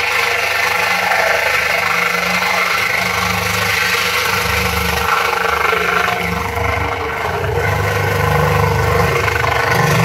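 Picote Super Midi drain-cleaning machine running steadily, spinning its flexible shaft inside a drain pipe to cut through a clog, with a steady motor whine over an uneven low rumble; it stops at the end.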